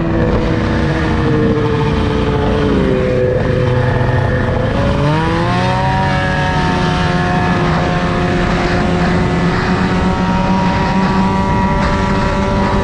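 Ski-Doo snowmobile engine running under way, with wind noise on the microphone. The engine note drops as the throttle eases off a couple of seconds in, then climbs again about five seconds in and holds steady.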